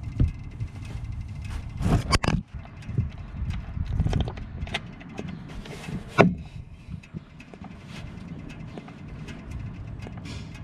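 Socket and drain plug being worked loose from the oil pan of a Polaris Sportsman 450 ATV: scattered metal clicks and knocks, the sharpest about two seconds and six seconds in, over a steady low rumble, as the plug comes free and the old oil starts draining into the plastic drain pan.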